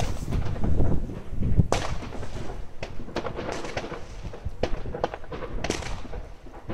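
Fireworks and firecrackers going off around the neighbourhood: a string of sharp bangs and cracks at irregular intervals, some close together, over a continuous rumble.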